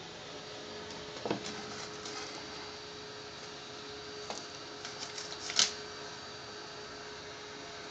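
Steady hiss of air from a hot-air rework station used for SMD soldering. A faint hum comes in about a second in, and there are a few small clicks and taps, the loudest just past halfway.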